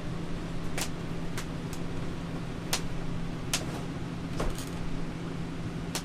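About six sharp clicks and knocks from handling the RV refrigerator's doors and cabinet panels, over a steady low mechanical hum.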